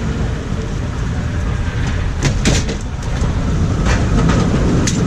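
San Francisco cable car rolling along its track, a steady low rumble with several short sharp clacks, a cluster about two seconds in and more near the end.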